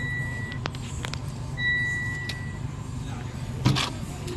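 A car's electronic warning chime with the ignition switched on, sounding as long, steady, high beeps about a second each. It plays over a low, steady background rumble, with a few light clicks and a louder clunk near the end.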